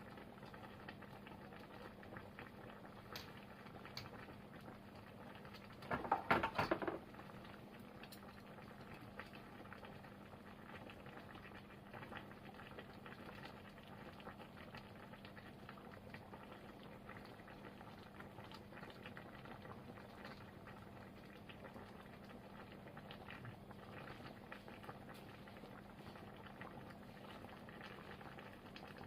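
Pot of chanko nabe bubbling at a steady simmer, with a brief louder rattle of short clicks about six seconds in.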